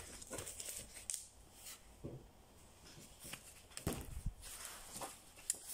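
Faint rustling and soft knocks of a large picture book being handled and its page turned, loudest about four seconds in.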